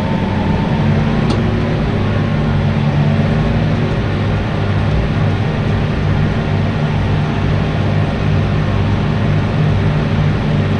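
Tractor engine running steadily under load, pulling mowers through grass.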